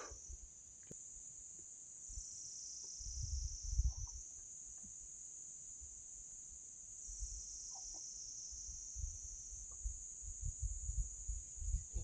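Steady, high-pitched chirring of an insect chorus that shifts slightly in pitch every few seconds, with low rumbles about three to four seconds in and again over the last few seconds.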